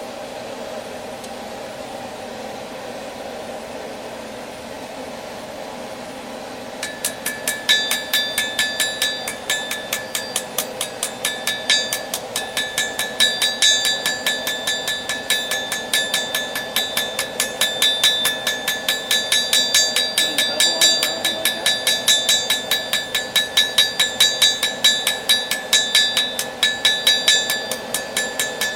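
A steady hum for about the first seven seconds, then a hammer starts striking steel on an anvil in quick, even blows, several a second, each with a bright metallic ring: a railroad spike being hammered into a knife.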